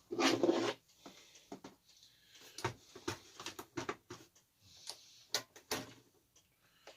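Handling noise from a plastic RC truck being turned over and examined by hand: a short loud burst at the start, then scattered light clicks, taps and rubbing at irregular intervals.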